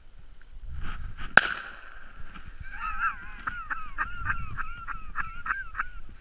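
A single sharp snap or knock, then a quick run of short animal calls, each rising and falling in pitch, about three a second for some three seconds.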